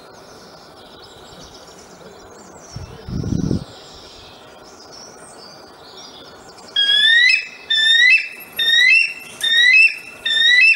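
Bald eagle calling: soft high chirps at first, then from about seven seconds five loud calls about a second apart, each rising in pitch. A brief low rumble sounds about three seconds in.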